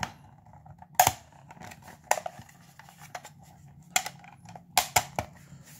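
Hard plastic battery-shell halves knocking and clicking against each other as they are lined up and pushed together, about five sharp clicks among lighter handling ticks.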